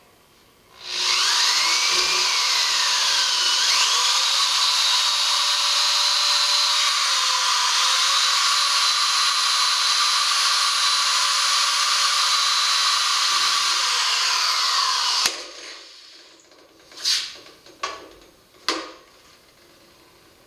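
Electric drill boring into the bronze of a gong, a loud high screech and whine whose pitch dips and recovers a couple of times, drilling out a stress-cracked section. It runs for about fourteen seconds and stops, followed by a few short knocks.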